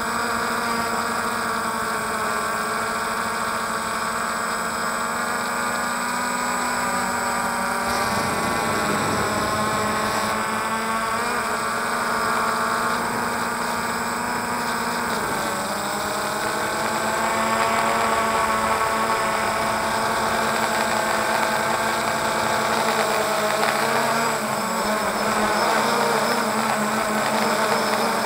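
DJI Phantom quadcopter's motors and propellers whining steadily in flight, heard from the camera on board. The pitch dips and shifts briefly about 8 and 15 seconds in as the drone manoeuvres, and the whine is a little louder from about 17 seconds in.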